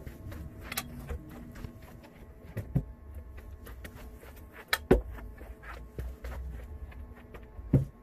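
Footsteps on a carpeted floor with a few scattered knocks and thumps, the loudest about five seconds in, over a low steady background rumble.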